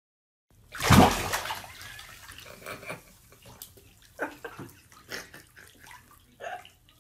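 Water sloshing and splashing in a bathtub: a loud splash about a second in that dies away, then smaller scattered splashes and drips.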